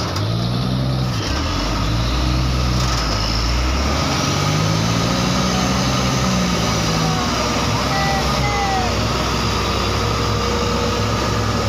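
Diesel engine of a heavily loaded Mitsubishi dump truck pulling at low speed over a rutted dirt road, its note rising and falling as the driver works the throttle.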